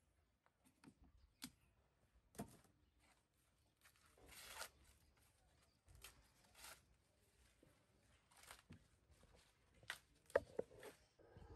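Fresh green maize cobs being husked by hand: faint, short tearing rustles as the husks are pulled off, with scattered snaps and crackles.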